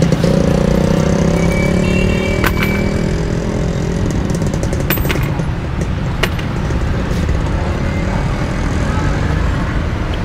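Street traffic noise, with a motor vehicle's engine running close by for the first couple of seconds. A few sharp clicks come through the traffic.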